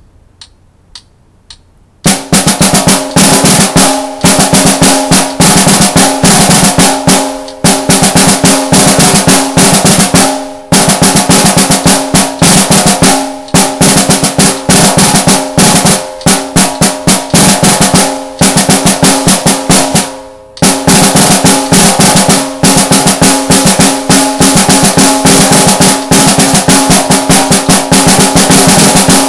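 Snare drum played with sticks: a rudimental solo etude built on nine-stroke rolls, dense rolls and accented strokes with a few brief breaks, loud and ringing. Four light clicks about half a second apart come just before the playing starts.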